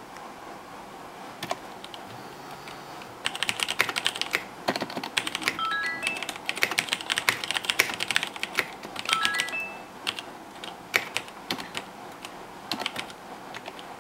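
Typing on a KBC Poker mechanical keyboard with Cherry MX Red linear switches: a fast run of key clacks starts about three seconds in and thins to scattered keystrokes after about ten seconds.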